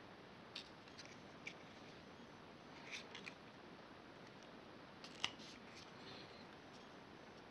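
A handful of faint, short clicks and crinkles of thin plastic milk-bottle propeller blades being handled and pressed onto a wooden skewer, over near-silent room tone; the sharpest click comes about five seconds in.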